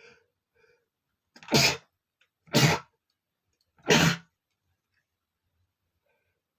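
A man sneezing three times in a row, about a second apart, each a short loud burst, after faint breaths at the start.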